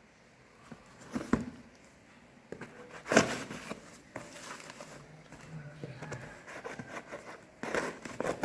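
A phone's retail box and packaging being handled: scattered rustles, taps and knocks. The loudest knock comes about three seconds in, with a busier cluster of handling noises near the end.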